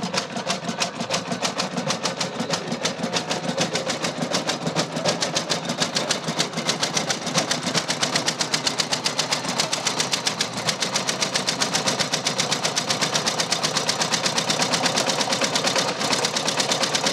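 The single-cylinder engine of an 1897 Léon Bollée tricar running at a steady idle, a rapid, even mechanical clatter that stops abruptly near the end.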